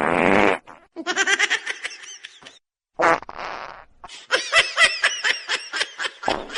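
A short buzzy, fart-like blare, heard twice, each followed by a run of quick, chopped laughter.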